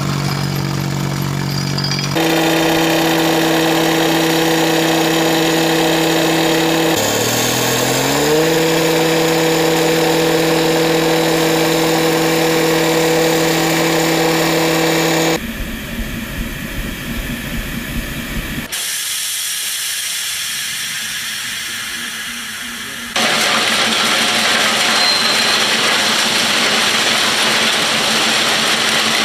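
Petrol abrasive cut-off saw running at full speed with a steady high whine, its pitch dipping and climbing back about seven seconds in as the disc cuts into steel. Near the end, a freight wagon rolls along the rails with steady wheel noise and hiss.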